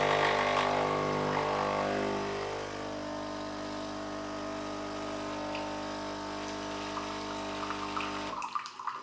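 Philips LatteGo 3200 coffee machine running its start-up rinse: the pump buzzes steadily as hot water is flushed through the coffee spout into a glass. The buzz is louder for the first two seconds or so, then steadier, and stops abruptly about eight and a half seconds in.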